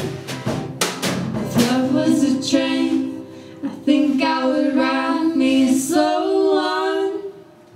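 Live acoustic band music: strummed acoustic guitars, acoustic bass guitar and drum hits for the first second or so, then women's voices singing long held notes over sustained chords. The last note stops about seven seconds in as the song ends.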